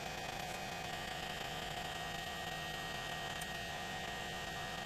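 Hot-air heat gun running steadily, a constant rushing hiss of blown air, as it shrinks adhesive heat-shrink tubing over a wire join.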